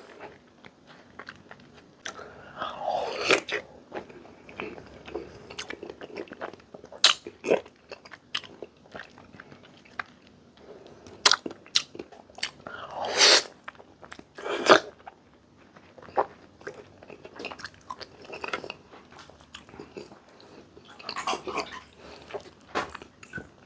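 A person biting and chewing crunchy raw fruit: irregular crunches and wet mouth sounds, with a few louder bites in the middle.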